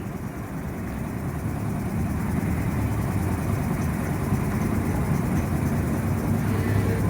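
A motor vehicle engine running steadily with a low rumble, a little louder from about two seconds in.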